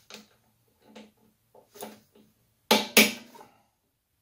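Ratchet wrench and spark plug socket working a lawn mower's spark plug back into the engine: a series of light metal clicks and knocks about once a second, the loudest two sharp clicks close together near three seconds in.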